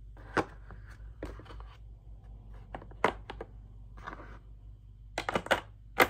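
A hydraulic crimping tool being handled and set into its moulded hard plastic carrying case: a string of sharp knocks and clicks with soft scraping between them, the loudest cluster of knocks near the end.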